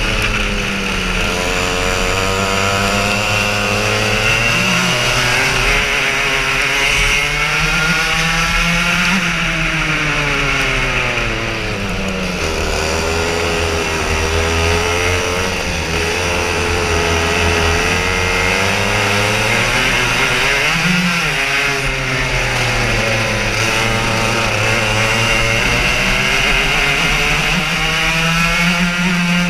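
Racing kart engine heard from on board, its pitch climbing as it accelerates and dropping as it slows for corners, several times over.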